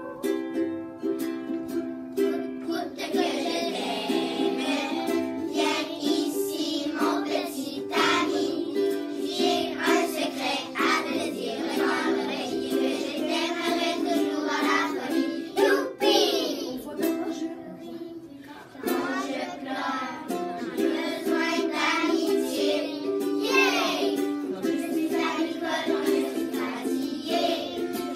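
A class of young children singing a French-language song together, accompanied by a strummed ukulele. The singing briefly drops away about two-thirds of the way through, then resumes.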